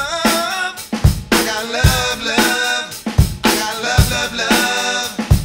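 A recorded song with a steady drum-kit beat of kick and snare hits a little under a second apart, under sustained melodic instruments.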